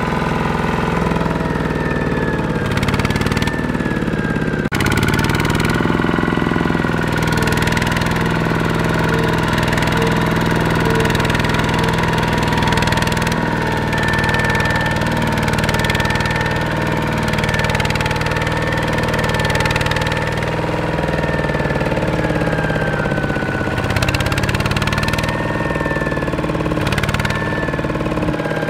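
Single-cylinder diesel engine of an old Kubota RT120 two-wheel walking tractor running steadily under load as it pulls a trailer loaded with rice sacks through a muddy rice field, with a sudden jump in the sound about five seconds in.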